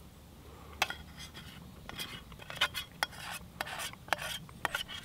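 Metal camp cookware being handled: a run of irregular clinks and short scrapes that starts about a second in.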